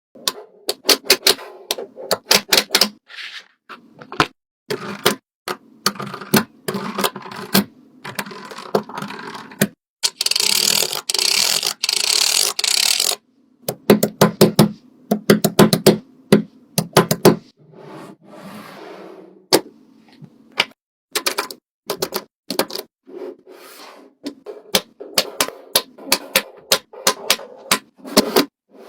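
Fidget toys being handled: rapid, irregular clicks, taps and scrapes, with a steady hissing crinkle for about three seconds around the middle.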